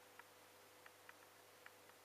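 Near silence: faint room hum with a few scattered light ticks as a small vial and a plastic tub are handled.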